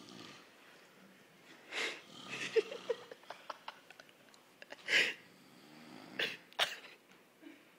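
A person's short breathy snorts and wheezes, several in a row, the loudest about five seconds in.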